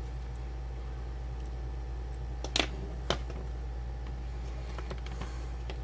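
Small hand tools and a plastic radio case being handled on a wooden workbench: two sharp clicks about half a second apart, a few seconds in, over a steady low hum.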